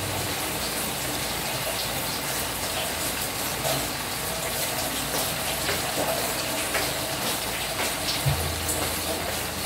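Pork, chicken liver and chayote sizzling steadily in a frying pan on a gas burner, with faint scattered crackles.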